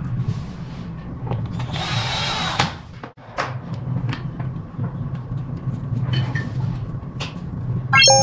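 Scooter reassembly work: a power tool runs for about a second, with scattered clicks and knocks of handling parts. Just before the end comes a quick rising run of electronic beeps that settles into a held tone.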